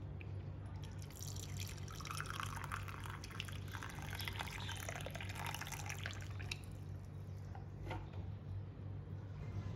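Water poured into a ceramic mug over a tea bag, starting about a second in and running for about five seconds, with a single drip near the end.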